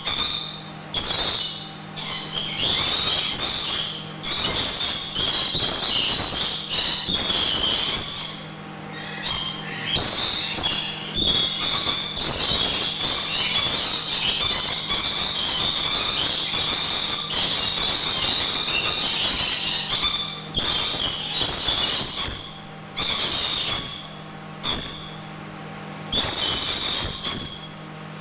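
A flock of lorikeets screeching and chattering shrilly and almost without pause, breaking off briefly every few seconds.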